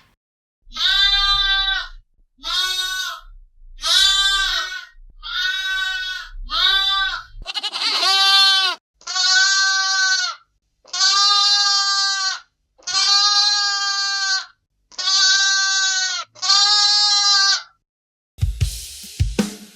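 Baby lamb bleating: a series of about eleven high calls of about a second each, the later ones longer and evenly spaced. Near the end a drum-kit beat starts.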